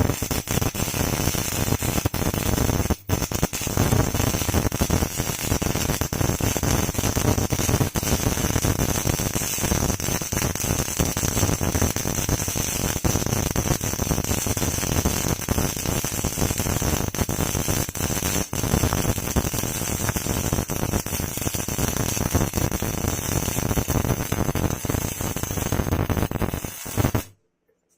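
MIG welding arc crackling and sizzling steadily as a bead is laid. There is a brief break in the arc about three seconds in, and it cuts off suddenly just before the end.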